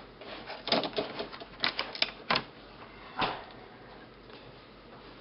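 Light, sharp clicks and taps of a laptop LCD panel being handled while its display cable is reattached. The clicks come in a quick irregular run for the first three seconds or so, then fade to faint handling noise.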